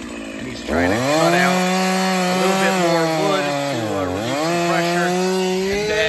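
Stihl chainsaw at full throttle cutting through a large fallen tulip tree trunk; the engine revs up just under a second in, its pitch sags and recovers about four seconds in as it works in the cut, and it stops near the end.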